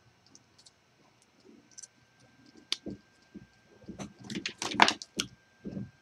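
Light clicks and small plastic-and-metal clatter from hands handling a circuit board, a pin-header strip and hand tools, with a quick run of sharper, louder clicks about four to five seconds in.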